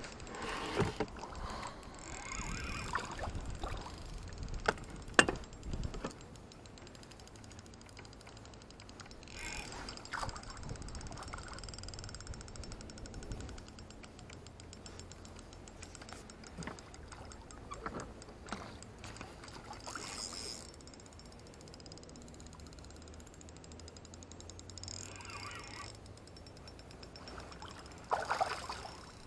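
Spinning reel being wound in short spells, with a hooked fish splashing at the surface beside a small boat; a sharp knock about five seconds in is the loudest sound, and there is a burst of splashing near the end.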